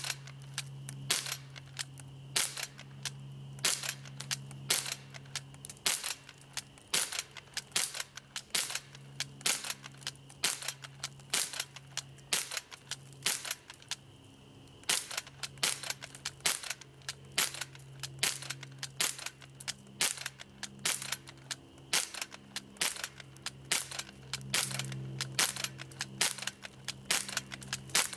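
Umarex H&K MP5 K-PDW CO2-powered BB gun firing shot after shot: sharp pops about one to two a second, each with the clack of its blowback action, with a short pause a little past halfway.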